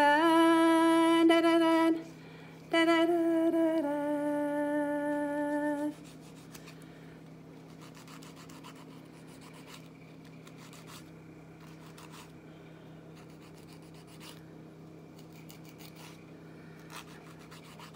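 A woman hums three long held notes, the last one lower, over the first six seconds. After that there is faint, irregular rasping of a nail file drawn across fingernails.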